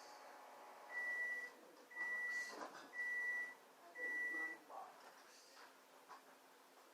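An electronic beeper sounds four times, evenly spaced about once a second, each beep a steady high tone lasting about half a second. Faint rustling and light knocks run between the beeps.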